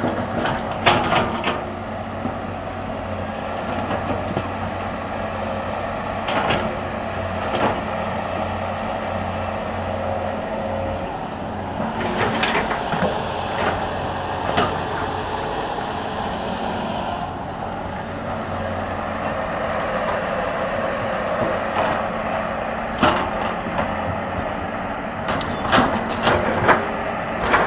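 Excavator's diesel engine running steadily while its bucket digs into large rocks, with scattered knocks and scrapes of stone against the steel bucket, several in a cluster near the end.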